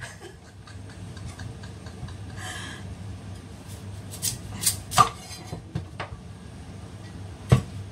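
Kitchen knife cutting through a hard kalabasa squash on a cutting board: a few sharp knocks of the blade striking the board in the second half, with a short scrape a couple of seconds in.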